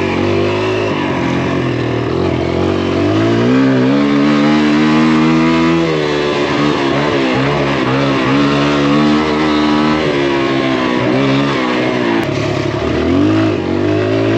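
A Kawasaki KLX trail bike's small single-cylinder four-stroke engine revving up and down as it is ridden through berms and jumps. The pitch climbs about three to four seconds in, holds, drops around six seconds, wavers, then falls and climbs again near the end.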